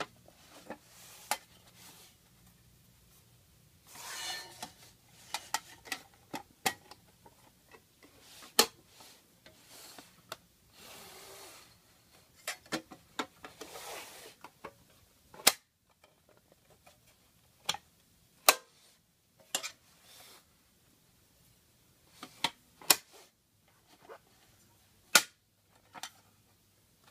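Handling an aluminum form holder: sharp clicks and clacks from its spring clip and hinged cover, about a dozen, spread unevenly, with a few short stretches of rustling.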